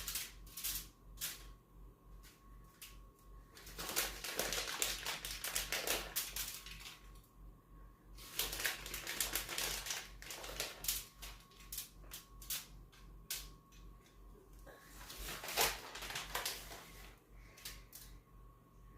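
Shredded cheddar cheese being sprinkled by hand from its bag onto garlic bread: quick, irregular clicks and rustles in clusters, with short pauses between handfuls.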